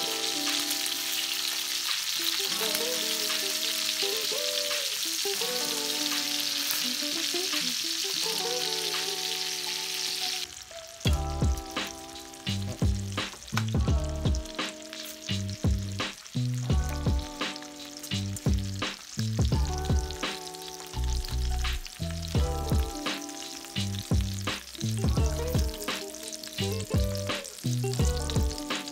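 Mahimahi fillets sizzling as they pan-fry in butter in a stainless steel skillet, under background music. About ten seconds in the sizzle drops away and the music, with a steady heavy beat, takes over.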